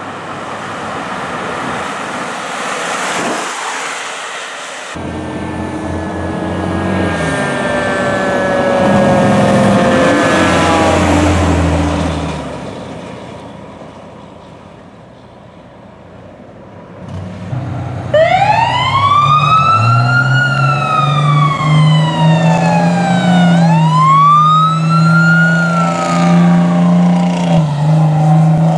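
Fire apparatus responding with sirens. For the first half there is vehicle noise and a siren slowly falling in pitch. After a quieter stretch, a loud electronic wail siren rises and falls in long sweeps of a few seconds each over a steady low hum.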